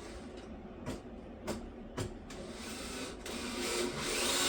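A few light knocks, then a power drill motor starting up and running, getting steadily louder over the second half.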